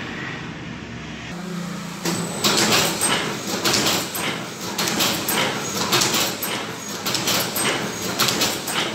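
High-speed automatic production machine running, its motor on a variable-frequency drive set to 65 Hz: a steady hum, then from about two seconds in a fast repeating clatter of sharp mechanical strokes, two to three a second.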